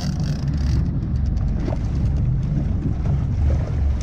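Low, steady rumble aboard a fishing boat at sea, with wind buffeting the microphone.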